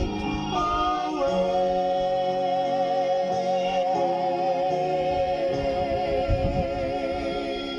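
Gospel song's final held note: a sung note with vibrato sustained for about seven seconds over instrumental backing.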